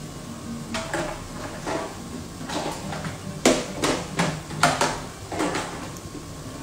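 Kitchen utensils clattering and knocking as they are handled and set down. The knocks start sparse and come thick and sharp about halfway through, over a low steady hum.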